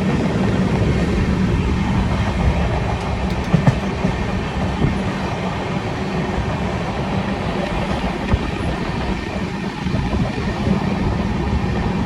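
A train running on the rails: a loud, steady rumble with a few short clicks of the wheels over the track.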